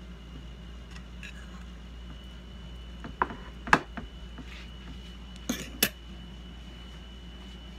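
Spatula clinking and scraping against a skillet as filling is scraped out of it: a few sharp clinks a little after three seconds in, the loudest just before four seconds, then two more clanks a little before six seconds in.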